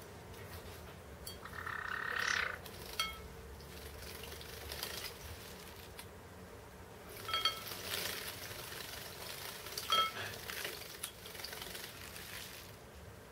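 Two Java sparrows bathing in a shallow bowl of water: bursts of splashing and wing-flapping, the longest near the middle and toward the end, with a few short, sharp chirps about three, seven and a half and ten seconds in.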